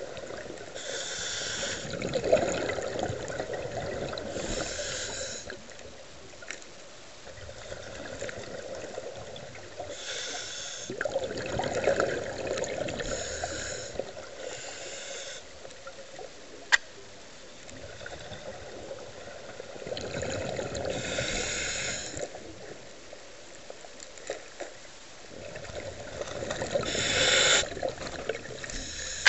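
Scuba diver breathing through a regulator underwater: a hiss from the regulator and a bubbling rush of exhaled air, repeating about every eight to ten seconds. One sharp click near the middle.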